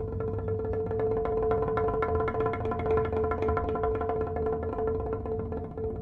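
Background documentary music: a single held note under a quick, even run of short repeated plucked notes.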